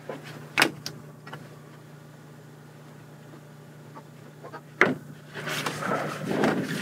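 Rustling of clothing with handling noise over a steady low hum: a couple of sharp clicks about half a second in, another sharp click near five seconds, then rustling through the last second and a half.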